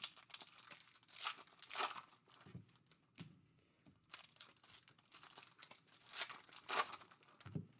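Foil wrapper of a Topps Chrome soccer card pack being torn open and crinkled by hand, in irregular short rips and rustles with a quieter lull in the middle.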